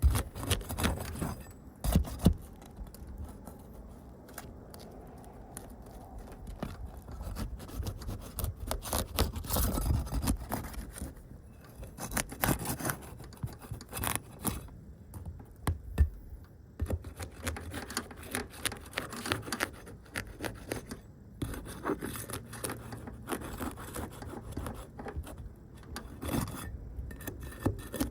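Irregular clicks, taps and scraping of small hard objects being handled, coming at an uneven pace with a few louder knocks.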